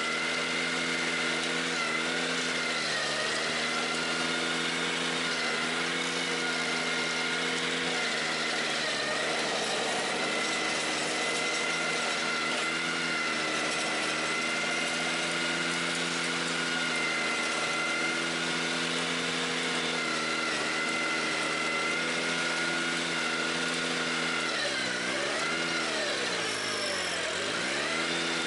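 Ventrac 4520Z tractor's engine running under load while its KC180 stump grinder cuts into a stump. The engine note holds steady but sags in pitch a few times as the cutter bites, with two deep dips near the end.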